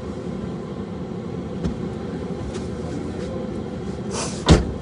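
Car running steadily with a low rumble, and one loud thump near the end.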